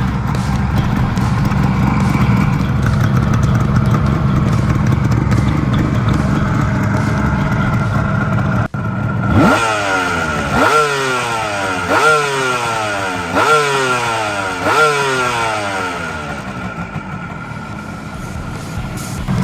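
Suzuki GT380's air-cooled two-stroke three-cylinder engine running at idle, then blipped five times, each rev rising sharply and falling straight back, before it settles to idle again. The engine has been fully overhauled and the seller describes it as running perfectly.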